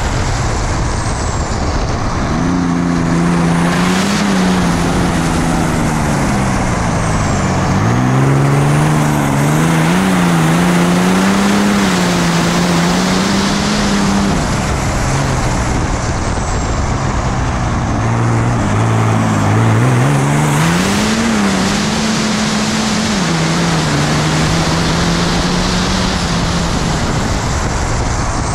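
6.7 Cummins inline-six race diesel with compound turbochargers pulling hard uphill, its pitch climbing and dropping back several times with throttle and gear changes, under a heavy rush of wind past the open cockpit. A few short high whistles fall in pitch along the way.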